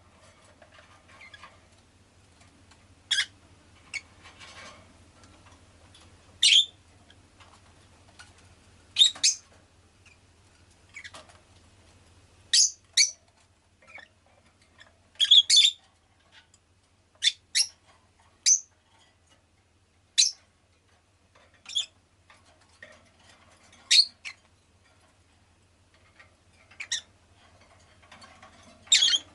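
Rosy-faced lovebird giving short, sharp, high-pitched chirps and squawks at irregular intervals, several coming in quick pairs.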